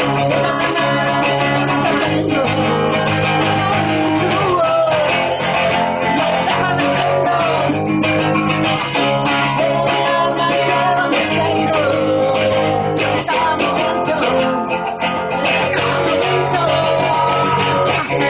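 Loud, continuous guitar music with bass guitar.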